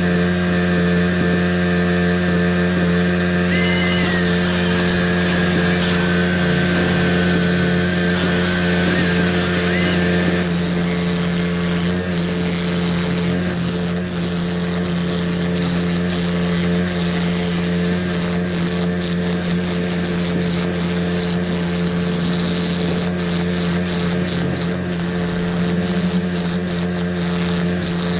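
Heavy machinery engine running steadily at a constant speed, a thin high whine over it for the first ten seconds or so, and scattered clicks and knocks through the second half.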